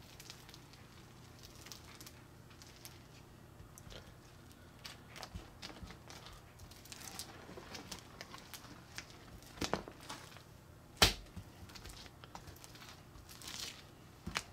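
A hand squishing, spreading and pulling homemade milk slime across a glass bowl: soft, sticky crackling and tearing sounds, with a few sharper pops, the loudest about three-quarters of the way through.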